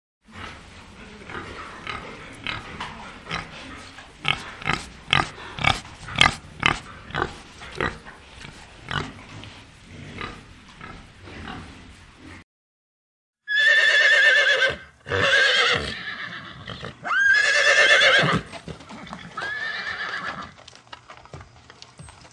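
Wild boar grunting, a quick uneven run of short grunts for about twelve seconds. After a brief gap, a horse whinnies four times, the calls wavering in pitch.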